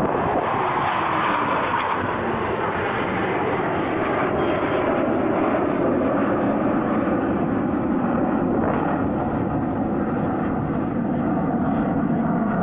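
Airplane flying past, its engine noise loud and steady, with a tone that falls in pitch over the first couple of seconds.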